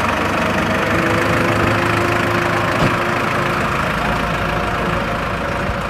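New Holland 7740 tractor's diesel engine running steadily at low revs as the tractor moves off slowly and turns away. There is one short click a little before the three-second mark.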